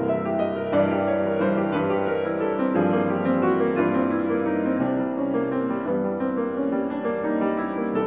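Grand piano played solo: a fast, dense stream of notes.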